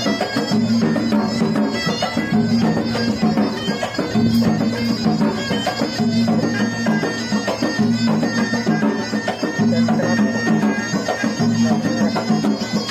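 Background music in a traditional folk style, led by a wind instrument over a steady low drone, in phrases of about two seconds.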